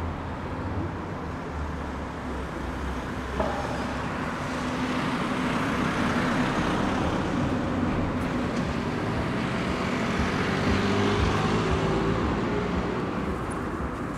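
City street traffic: car engines and tyre noise passing by, growing louder about five seconds in, with a single sharp knock about three and a half seconds in.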